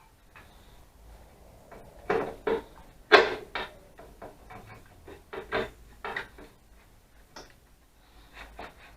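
A motorcycle slip-on exhaust muffler is twisted and pulled off its header pipe, giving a run of metal knocks and clatters. The loudest knock comes about three seconds in.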